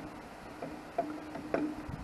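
Light metal clicks and taps from a wrench and mounting nuts and lock washers being worked onto a tractor carburetor's studs, three sharp clicks about a second apart, over a faint hum.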